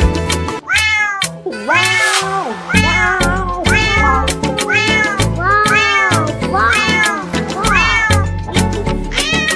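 A cat meowing over and over, about once a second, each meow rising and then falling in pitch, over music with a steady beat.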